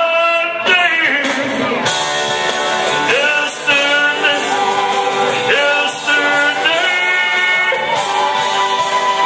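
Live band with singing playing the closing bars of a slow ballad, with held chords and voices changing every second or so.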